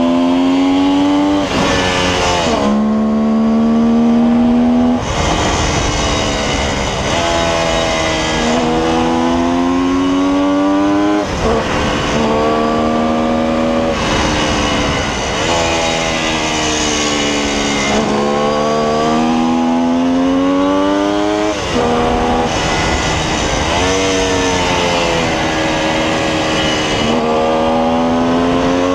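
1972 Kawasaki H2's 750 cc two-stroke three-cylinder engine being ridden hard. Its pitch climbs under throttle and then falls away as the throttle closes or a gear changes, over and over every few seconds.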